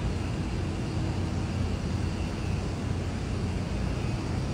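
Steady low rumble of city street noise, with a car engine running nearby.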